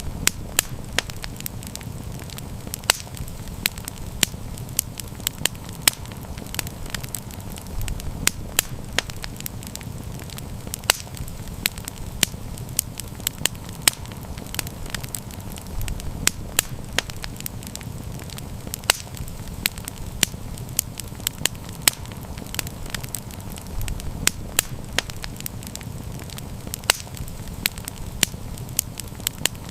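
Campfire crackling: frequent irregular sharp pops and snaps of burning wood over a steady low rumble.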